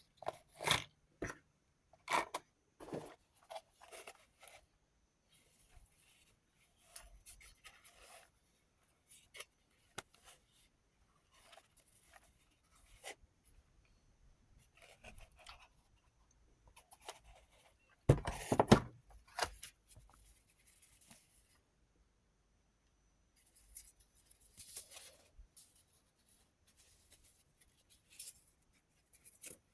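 Small rotary tool accessories and their packaging being handled, with scattered rustles, scrapes and clicks. A louder burst of rustling comes about eighteen seconds in.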